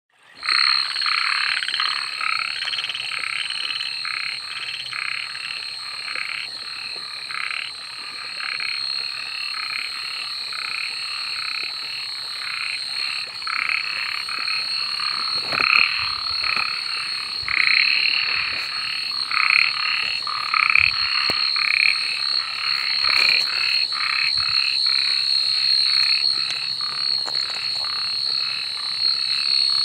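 Many frogs calling together in a dense night chorus of short, overlapping croaks, over a steady high-pitched tone.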